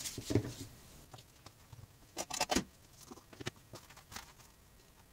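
Handling noise of leather pieces being picked up and moved on a cutting mat: a few short rustles and taps, the loudest cluster about two and a half seconds in, then quiet.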